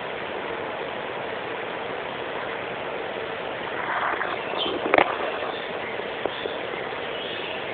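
Female sanhaço (tanager) knocking its beak against a window pane: one sharp tap about five seconds in, then two lighter taps, over a steady rushing background noise.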